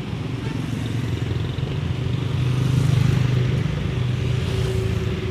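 Road traffic: motor vehicle engines running past, with a steady low hum that swells louder about two and a half to three and a half seconds in as a vehicle goes by.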